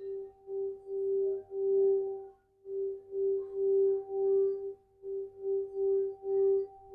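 Bronze-and-copper Tibetan singing bowl sounding one sustained tone with a fainter overtone above it. The tone swells and fades about twice a second, as a mallet is circled around the rim, and dips briefly twice.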